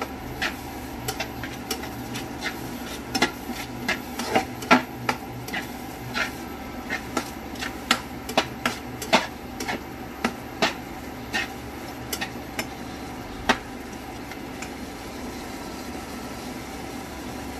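A slotted metal spatula scraping and knocking against a non-stick frying pan as it stirs a chunky tomato sauce. The knocks come at irregular intervals, about one or two a second, over a steady low hum.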